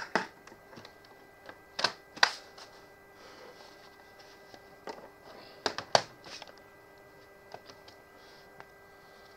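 Plastic clicks and knocks of an HP 250 G6 laptop being handled and set down on a wooden desk, with the loudest knocks near the start, about two seconds in and about six seconds in, over a faint steady hum.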